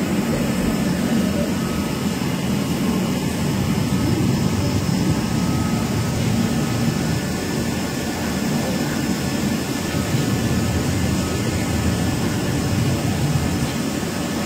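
Studer S41 CNC cylindrical grinder running: a steady machine hum with a few faint high whining tones over it.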